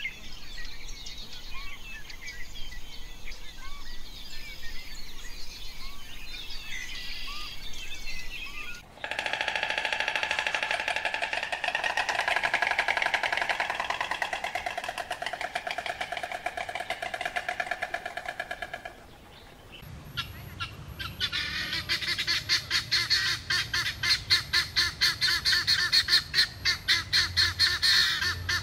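A sequence of animal calls in three clips: small birds chirping in scattered short calls, then about nine seconds in a dense, steady chorus of calls, then from about twenty seconds in rapid, evenly pulsed calls over a low rumble.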